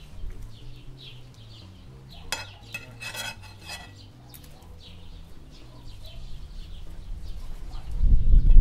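Metal scraping and clinking as smoked beef ribs are pushed off a steel skewer with a fork onto a plate, with a few sharp clinks about two to four seconds in. Small birds chirp throughout, and a loud low rumble sets in near the end.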